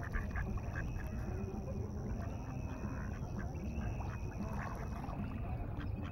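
Steady low wind rumble on the microphone at the water's edge, with faint small splashes and dabbling from mallards feeding close by in the water.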